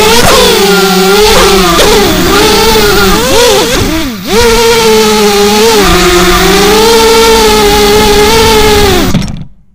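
The brushless motors and propellers of an FPV racing quadcopter whine loudly, picked up by its onboard camera. The pitch rises and falls with the throttle, dips briefly about four seconds in, then holds steady before cutting off just before the end as the motors stop.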